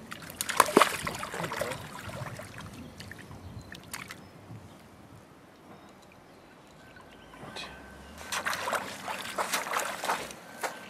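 Splashing and sloshing in shallow water as hands grab a landed brown trout, loudest about a second in, then quieter, with another spell of splashing near the end.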